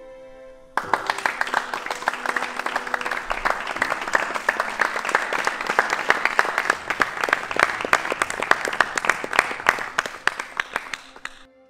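A group of people applauding, starting suddenly about a second in and dying away near the end, with soft background music under the first few seconds.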